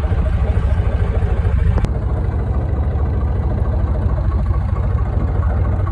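Yamaha boat engine idling steadily with a low, even pulse. There is one sharp click about two seconds in.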